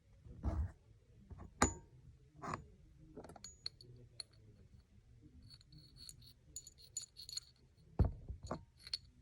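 Scattered small metallic clicks and clinks, with a few louder taps, from prosthetic hook hands handling a leatherworking awl and its thread.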